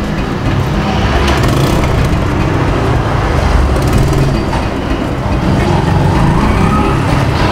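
A steady, loud low rumbling noise.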